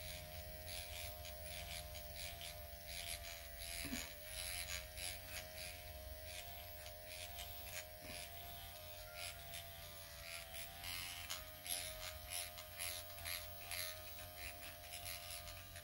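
Electric microneedling pen (Dr. Pen) buzzing steadily as its needle cartridge is pressed and moved over the skin of the chin and jaw, a faint motor hum with a pitch that wavers slightly. Light, irregular ticks run over the hum.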